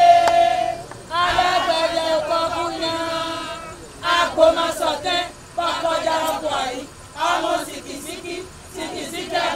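Group of women chanting together in long held phrases, with short breaks between them.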